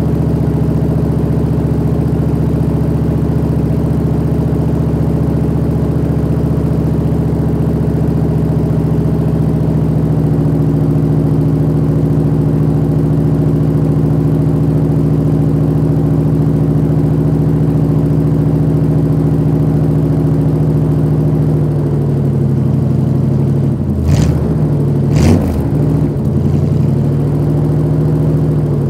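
1986 Chevy C-10 pickup's engine idling steadily while it warms up after a cold start, heard from behind the truck. About three quarters through the idle settles slightly lower, then two quick throttle blips come near the end.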